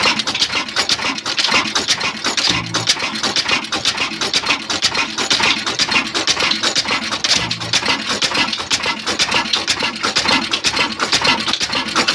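Pakistani-built 26 hp horizontal diesel engine running steadily, with a fast, even mechanical clatter from its valve gear and fuel injection.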